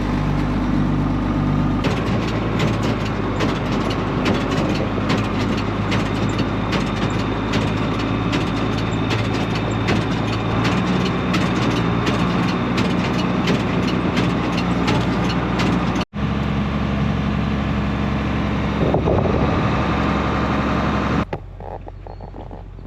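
A vehicle engine running steadily, with fine rattling over it. The sound breaks off for an instant about two-thirds of the way through and turns much quieter near the end.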